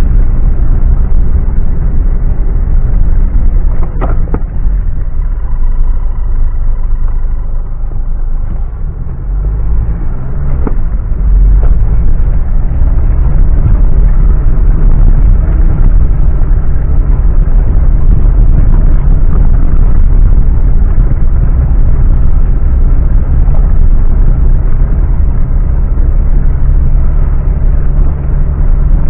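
Mitsubishi Pajero driving off-road: its engine running under load with a heavy, loud rumble, and two sharp knocks about four and eleven seconds in. The engine sound eases briefly about nine seconds in and then picks up again.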